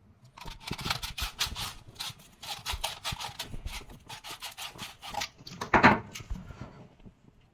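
Quick scraping or rasping strokes on PVC pipe, about four a second, with one louder stroke near the end.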